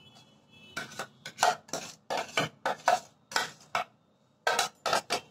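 Metal spoon clinking against a plastic bowl as liquid is stirred into a flour mix: a quick, irregular run of sharp clinks, about three a second, with a short pause a little before the last few.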